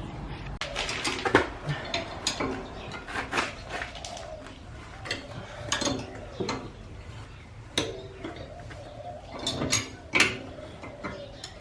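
Irregular metallic clinks and knocks of hand tools working on a car's front coilover, about a dozen sharp strikes with a few louder ones, as the spring seat is wound down to lower the car.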